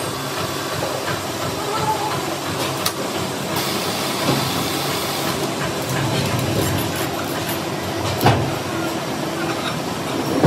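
Steady workshop machinery noise with a hiss, broken by a few sharp knocks.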